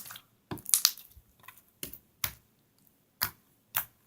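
Glossy milk slime being pressed and poked, giving sharp popping crackles as trapped air bursts: a quick cluster in the first second, then single pops every half second to a second.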